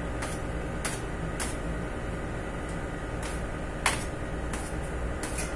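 A metal bench scraper chops a log of bread dough into portions. Each cut ends in a sharp click of the blade on the steel worktable, about seven cuts at an uneven pace, the loudest a little before four seconds in. A steady low hum runs underneath.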